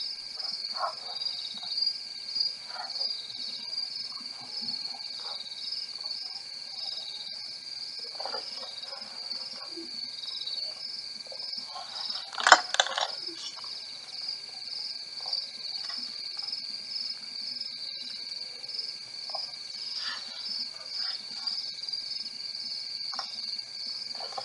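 Steady, pulsing chirring of crickets at night, with short scattered calls here and there and a single sharp knock about halfway through.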